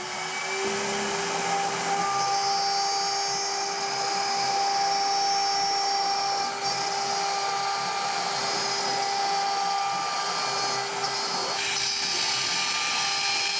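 CNC router spindle with a 4 mm straight-flute end mill milling a pocket into beech wood: a steady high whine as the spindle finishes coming up to speed in the first moments, with the hiss of the cutter chewing through the wood.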